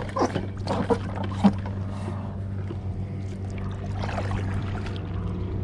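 Inflatable paddleboard being handled and paddled: knocks and short water splashes in the first second and a half, the loudest a knock, over a steady low hum.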